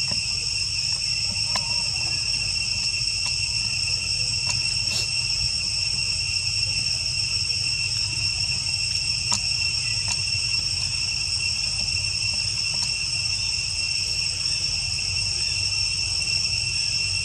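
A steady, high-pitched insect chorus that holds two even tones without pause over a low rumble, with a few faint clicks.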